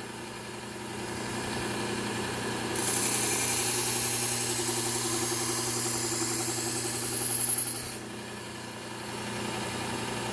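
Bucktool low-speed belt sander running with a steady hum, and a knife blade ground against the moving belt with a high hiss from about three seconds in until it stops abruptly about eight seconds in.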